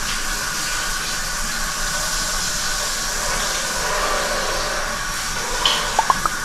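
Water spraying steadily from a shampoo-basin sprayer as hair is rinsed, with a few short squeaks about six seconds in.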